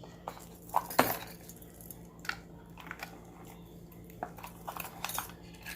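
Metal jewelry clinking and rattling as the pieces are handled, a series of small, irregular clinks with the sharpest about a second in.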